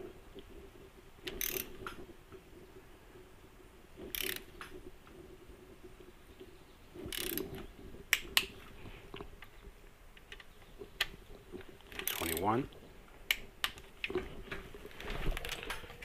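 Socket wrench ratcheting in short spells of rapid clicks while motorcycle crankcase bolts are run down and torqued in sequence, the clicking coming more often near the end.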